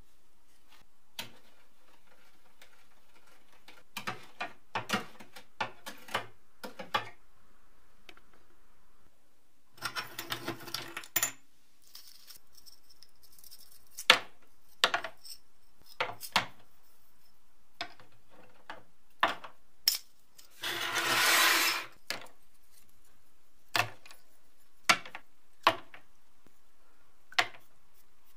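Rusty steel calendar plates being dropped one by one into a clear plastic tub of citric-acid rust-removal solution. They make a series of sharp clinks and knocks against each other and the tub, with two longer bursts of noise, one about ten seconds in and a louder one about twenty-one seconds in.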